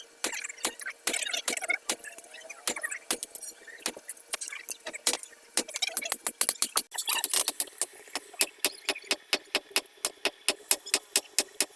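Blacksmith's hammer striking steel on an anvil while forging scissors: uneven, clinking blows at first, settling from about seven seconds in into a quick, steady rhythm of about four blows a second.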